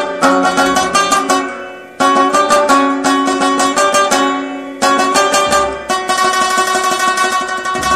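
Instrumental music on a plucked string instrument: picked notes ring and decay, with new strong phrases about two and five seconds in and fast repeated notes in the last couple of seconds.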